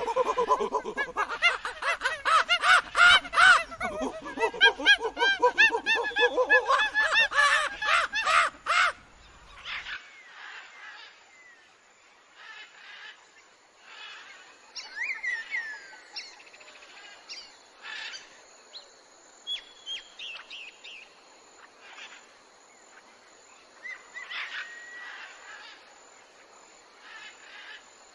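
A loud, laughter-like sound effect of rapid pitched calls, which cuts off suddenly about nine seconds in. After it come faint birds chirping now and then, and light scratching of a coloured pencil on paper.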